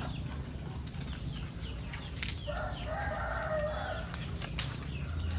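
A rooster crows once, a call of about a second and a half starting about two and a half seconds in. Mango tree branches being pulled down make scattered snaps and rustles of leaves and twigs.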